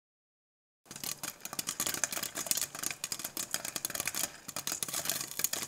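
Rapid, irregular clicking of fingers typing on a laptop keyboard, starting about a second in after silence.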